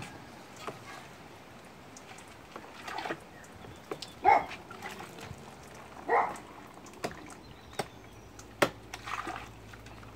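Water splashing and dripping in a plastic tub as capuchin monkeys move about in their bath, with scattered small knocks and two louder short sounds about four and six seconds in.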